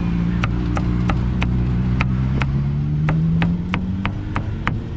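Cleaver chopping cooked meat on a wooden board, sharp blows at roughly three a second, over the hum of a passing vehicle engine that rises slightly in pitch and fades about four seconds in.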